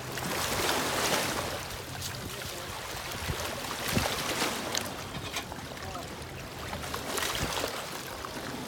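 Wind gusting across the microphone, swelling and easing a few times, over river water lapping at a rocky shore, with a faint low hum beneath.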